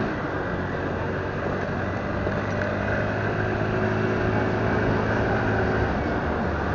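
Motorbike engine running steadily while riding, mixed with wind and road noise at the handlebar-mounted microphone.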